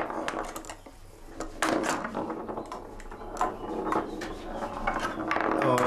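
Homemade wooden pinball table being played, with scattered sharp wooden clacks and knocks from its flippers and ball.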